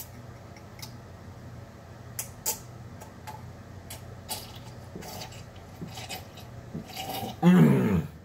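A man drinking a glass of drink down in one long go, with small clicks of glass and mouth as he swallows. Near the end he lets out a loud vocal exclamation that falls in pitch as he lowers the glass.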